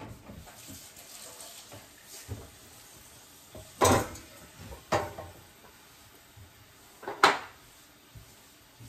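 Kitchenware being handled and set down: three sharp clattering knocks, about four, five and seven seconds in, over faint rustling and scraping.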